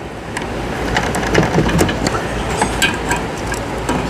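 Metal tools and transmission parts clinking and tapping during a CVT teardown: a run of short, sharp clinks, some briefly ringing, over a steady low rumble.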